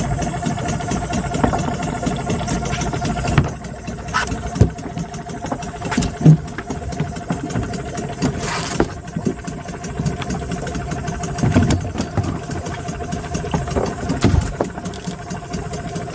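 Engine running steadily at an even speed, with a few short knocks and rattles over it.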